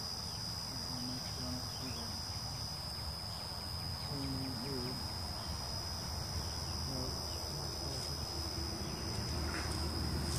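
Honeybees buzzing around an open hive, a steady low hum, with a constant high-pitched insect trill behind it.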